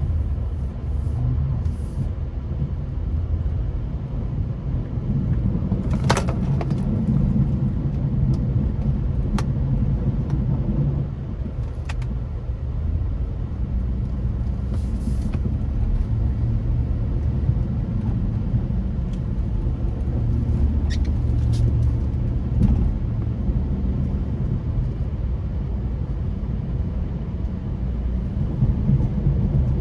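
2005 Chevrolet Avalanche's V8 engine running steadily under load while it pushes a Western plow blade through drifted snow, with a few short sharp clicks or knocks.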